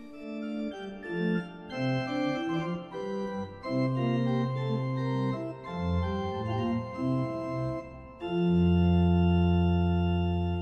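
Background organ music: slow sustained chords over a moving bass, swelling into a loud, long-held low chord about eight seconds in.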